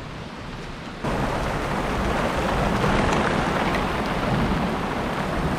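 Heavy rain coming down: a faint hiss that jumps abruptly about a second in to a loud, steady downpour.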